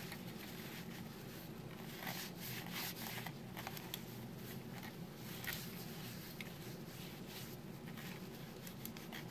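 A cloth rubbing over the plastic shell of an optical wheel mouse, drying it after cleaning with isopropyl alcohol: faint, irregular scratchy swishes of wiping strokes.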